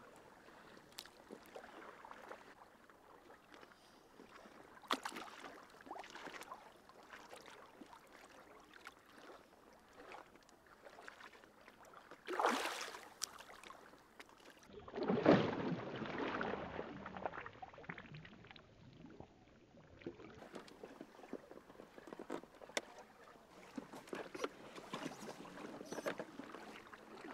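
Lake water splashing and lapping as a large carp is released in the shallows and swims away, with the loudest splashing a little past halfway through.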